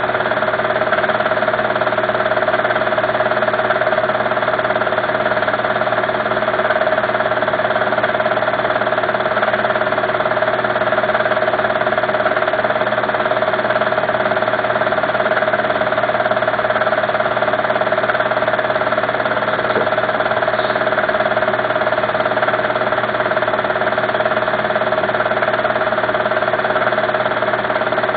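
A steady, unchanging motor drone with one strong constant tone.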